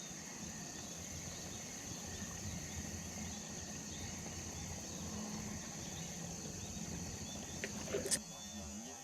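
Steady high-pitched chorus of insects over quiet outdoor background noise, with one sharp click about eight seconds in.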